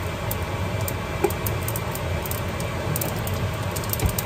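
Hot oil in a frying pan crackling with many small, sharp pops, over a steady low rumble. The oil has been heated on high until it gives off vapour, ready for tempering mustard seeds.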